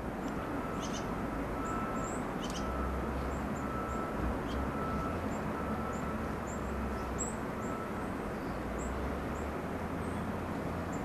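Steady low outdoor rumble and hiss, with small birds chirping in short high notes repeated every second or so.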